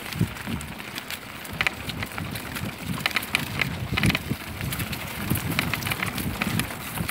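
Bicycle ridden along a bumpy forest dirt path, rattling and knocking irregularly as it jolts over the ground, with wind rumbling on the microphone.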